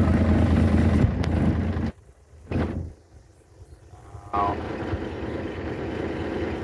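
Truck engine running, heard inside the cab as a loud steady low hum. About two seconds in the sound drops to near silence, broken by one short burst, and a quieter steady engine and cab noise comes back about four seconds in.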